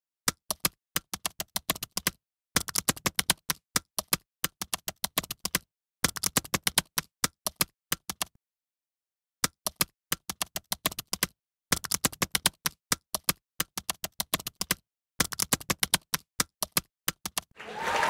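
Typewriter typing sound effect: quick clacking keystrokes, several a second, in runs of two to four seconds broken by short stretches of dead silence. Applause begins to rise in at the very end.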